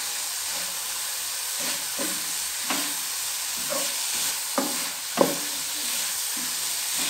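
Wooden spatula stirring a moist grated-coconut and sugar mixture cooking in ghee in a pan, over a steady frying sizzle. Several short sharp scrapes of the spatula against the pan come through the middle.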